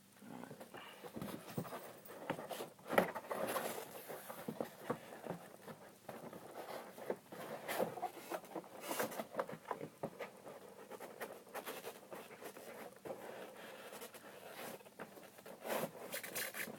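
Faint, irregular knocks, clicks and rustles of packaging and drone parts being handled and lifted out of a box.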